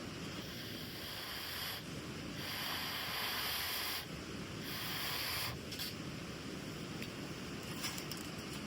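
Two long breaths blown into a smouldering tinder bundle to coax the ember from a flint-and-steel strike into flame, each a breathy hiss lasting a second or more, over a steady outdoor rumble.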